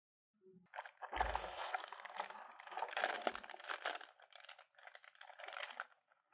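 Clear plastic bag crinkling and crackling as it is handled, with a dull bump about a second in.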